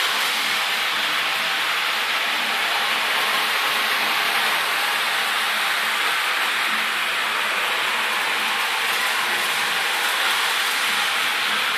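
Model steam locomotive and train cars running along the layout's track, giving a steady, even hiss-like running noise with no distinct chuffs or clicks.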